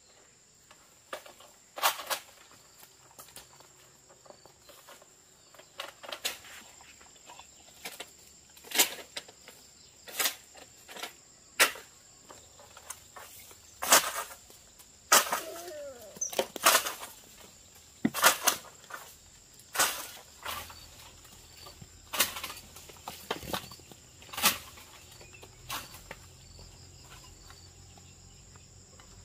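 Steady high-pitched insect chirring throughout, broken by a series of sharp snaps and clicks at irregular intervals, loudest and most frequent in the middle and latter part.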